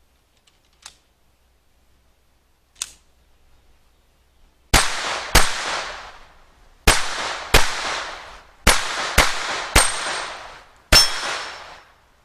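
Eight gunshots from a firearm being test-fired at a newly built target stand, in uneven pairs spread over about seven seconds, each trailing off in an echo. Two faint clicks come first.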